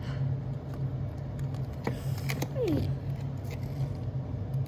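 A steady low hum, with a few light clicks of plastic toy pieces being handled about two seconds in and a short falling squeak just after.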